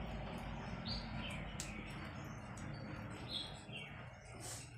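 Small birds chirping: four short high chirps in two pairs, about a second in and again past the three-second mark, over steady low background noise with a couple of faint clicks.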